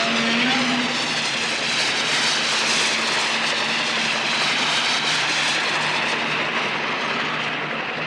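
Jet aircraft engine noise: a steady, even rush with a faint whine that dies away in the first second or so, and a slowly sweeping hiss in the high end.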